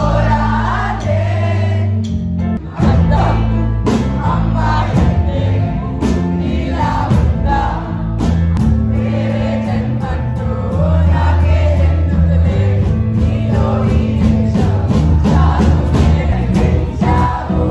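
Live band playing a song with a heavy bass line while the audience sings along in chorus.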